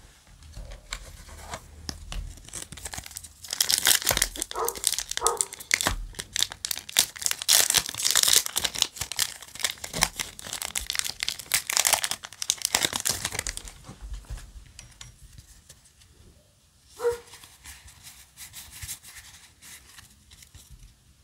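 Foil Yu-Gi-Oh! booster pack wrapper being torn open and crinkled, a long dense run of crackling that dies down about two-thirds of the way through, leaving the softer sound of cards being handled.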